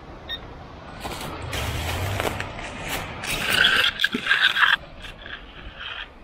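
Rough scraping and rubbing of a small dug-up metal piece being handled in the fingers, building from about a second in and stopping abruptly near five seconds.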